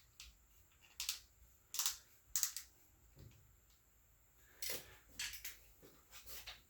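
Irregular metallic clicks and clinks from a torque wrench and socket being worked on cylinder head stud nuts, about six short bursts a second or so apart.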